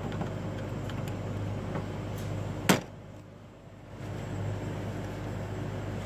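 Steady low machine hum with a few steady tones, broken a little before halfway through by one sharp, loud click; the hum drops away for about a second after the click, then returns.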